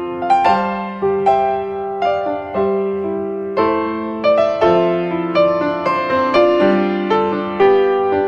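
Background piano music: single notes and chords struck about twice a second, each ringing and then fading.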